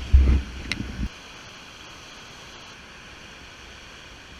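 Steady rushing hiss of river whitewater heard from a raft running into a rapid. It opens with about a second of heavy low thumps and buffeting on the microphone.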